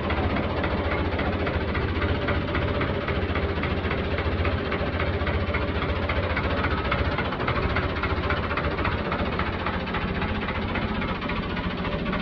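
1979 Fiat 640 tractor's diesel engine idling steadily, with an even, rapid firing rhythm.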